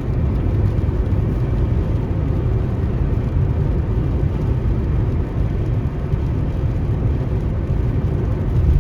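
Steady engine and tyre noise of a car being driven on the highway, a low, even rumble.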